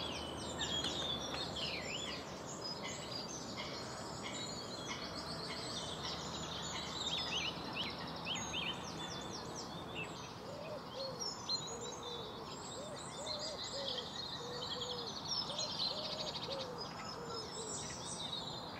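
Mixed birdsong from several small birds, many short chirps and trills throughout, with a lower repeated call joining in for several seconds in the second half, over a faint steady outdoor hiss.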